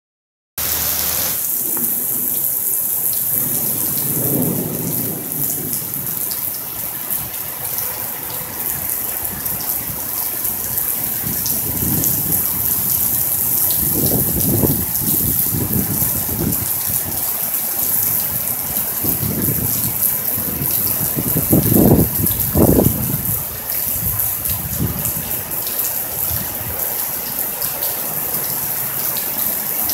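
Steady rain hissing, with low rumbles of thunder rolling in several times, the loudest about 22 seconds in.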